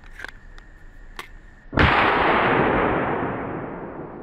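A single shot from a Smith & Wesson M&P 15-22 .22 LR rifle about two seconds in, sharp at the start and then trailing off in a long echo. A few light clicks come before it.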